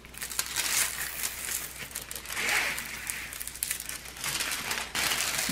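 Crinkling and rustling of the clear plastic cover film on a diamond painting canvas as hands press and smooth it flat: irregular crackles with no steady rhythm.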